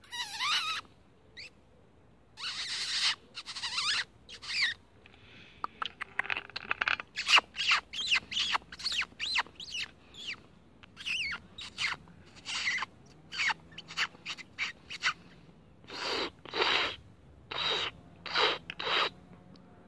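Squirrel calling: dozens of short, harsh chattering calls, some sliding up and down in pitch, in irregular clusters with brief gaps. The last few, near the end, are fuller and lower.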